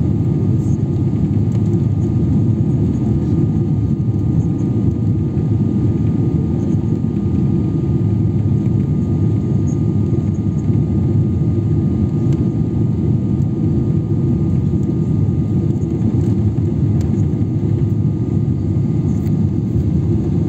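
Steady low rumble of cabin noise inside a Boeing 777-300ER airliner on its landing approach, engines and rushing air with a faint steady whine on top.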